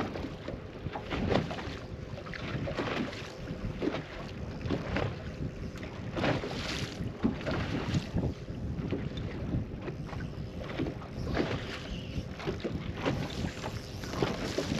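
Wind buffeting the microphone and small waves slapping irregularly against the hull of a bass boat drifting on open, choppy water.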